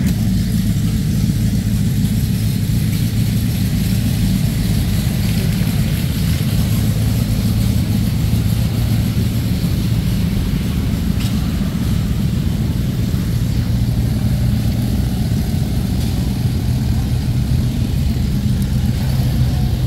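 An engine running steadily at a constant speed: a low, even drone with no revving.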